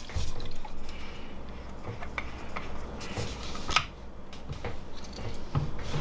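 Scattered light clicks and handling noises from a plastic-capped fuel bottle as its safety valve cap is worked open to pour alcohol for preheating, with one sharper click near the middle over a steady low hum.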